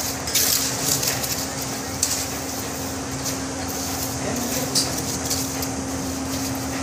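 Steel trowel scraping and spreading cement mortar along the top of a concrete-block wall, in several short scrapes, over a steady mechanical hum.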